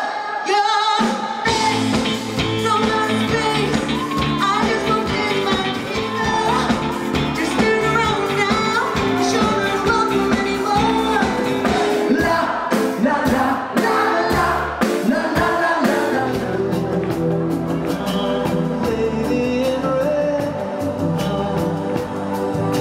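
Pop-rock song with a lead singer. About a second in, a full band with bass and drums comes in under the voice and keeps a steady beat.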